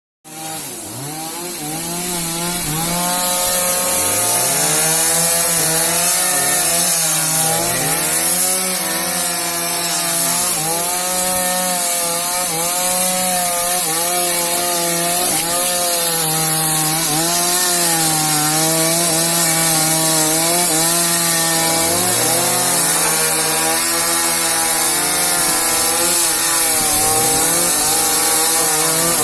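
Two chainsaws running at the same time and cutting wood. One holds a fairly steady pitch while the other keeps revving up and down, so their engine notes rise and fall against each other.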